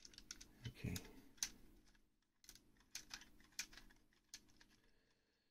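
Light, irregular clicks and taps of plastic Lego Technic parts being handled and pressed into place on a model.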